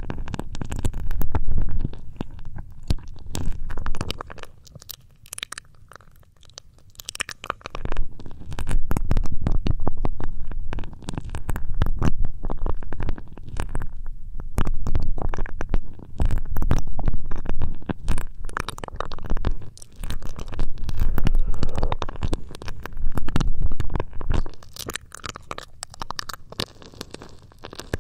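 ASMR ear rubbing: hands rubbing over the microphone's ears, a deep muffled rumbling with scratchy crackle, in repeated strokes that swell and fade every second or two.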